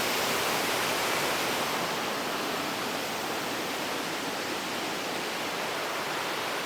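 Steady roar of rushing water from a waterfall, an even noise without pauses or separate sounds.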